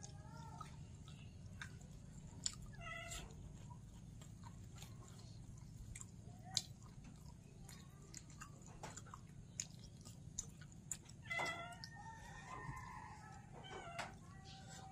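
A cat meowing several times: a short call about three seconds in, then longer, wavering calls in the last few seconds. Underneath are the small clicks and smacks of someone chewing food.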